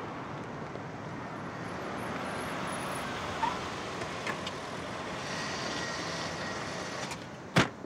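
A car rolling slowly up across a parking lot, a steady mix of engine and tyre noise, with a single loud sharp clunk near the end.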